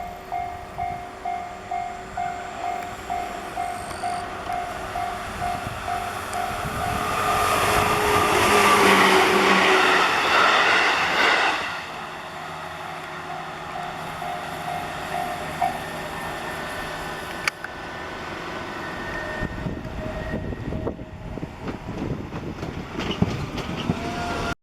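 Japanese level-crossing warning bell ringing in a steady, repeated ding. About seven seconds in, a train rushes past for roughly five seconds, loud enough to drown out the bell. After the train the bell sounds again for a few seconds, then stops, and rail noise with scattered clicks builds toward the end.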